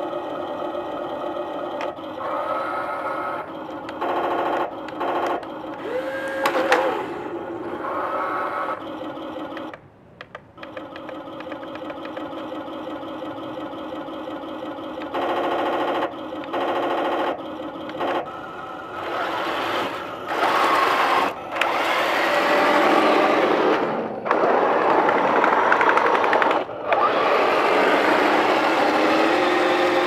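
Heng Long RC tank sound unit playing a diesel engine idle through its small speaker, with short bursts of small electric gear motors whirring. From about 19 seconds in, the drive motors run and the tracks grind over the concrete as the tank moves off, much louder than the idle.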